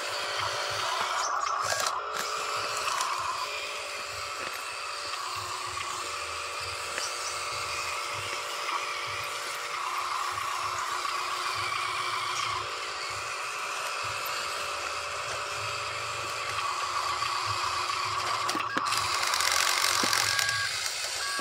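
Huina radio-controlled dump truck's small electric drive motor and gearbox whining in several spells as it drives over dirt, loudest near the end.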